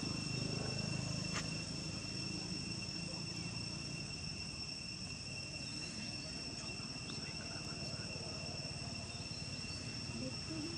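Steady high-pitched insect drone, one unbroken whine with a higher overtone, over a low background rumble.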